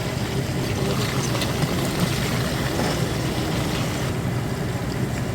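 Flour-coated chicken legs frying in hot oil in a pan: a steady sizzle with small crackles, over a constant low hum.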